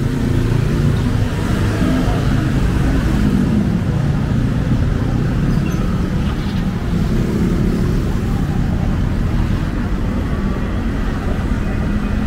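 Road traffic: car and motorbike engines running and passing in a steady low rumble, with engine tones that rise and fall.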